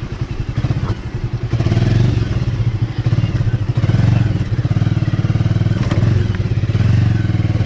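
Bajaj Avenger 220's single-cylinder engine running at low revs, its level rising and falling as the throttle changes.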